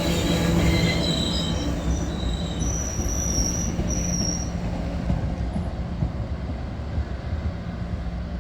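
MBTA commuter train hauled by an MPI HSP46 diesel locomotive rolling along with a steady low rumble, its steel wheels squealing in thin high-pitched tones for the first four seconds or so. The rumble slowly fades as the train moves away.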